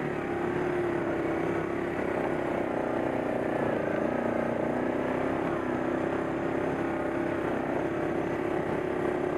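ATV engine running steadily at a low, even speed while riding, its pitch holding nearly constant.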